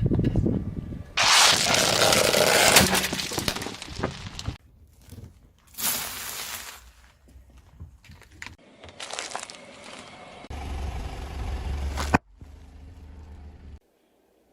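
Things being crushed under a car's tyres: several separate loud bursts of cracking and crunching, cut one after another. A low rumble comes about eleven seconds in.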